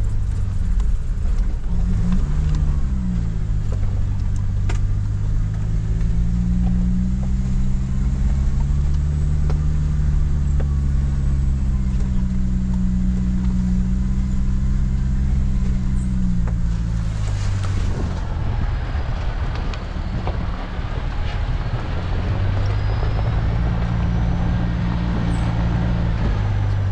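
Toyota Prado four-wheel drive's engine running at low revs while crawling along a rutted dirt track, its pitch rising and falling as the throttle comes on and off, heard from inside the cab. About 18 seconds in the sound turns hissier, with more tyre and wind noise from outside the vehicle, and the engine note dips before picking up again.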